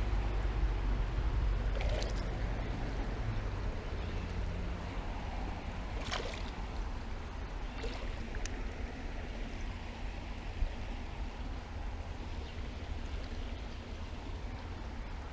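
Creek water flowing steadily, under a low rumble that is heaviest in the first few seconds. A few sharp clicks or knocks sound about two, six and eight seconds in.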